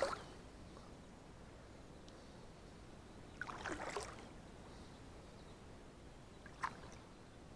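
Hooked pike splashing at the water's surface beside an inflatable boat: a splash right at the start and another rough, briefer one about three and a half seconds in, with a short click near the end.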